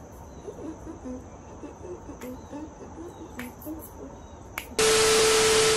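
Quiet room sound with a faint steady high whine, then about five seconds in a sudden loud burst of static-like hiss with a steady hum tone under it. It is an edited noise transition effect, and it cuts off abruptly.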